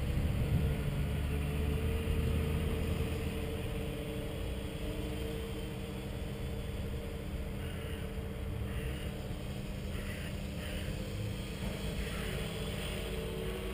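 Small multirotor's electric motors and propellers humming steadily while it hovers in GPS position hold, the pitch of the hum shifting a little as the controller corrects its drift. A low rumble of breeze on the microphone runs underneath.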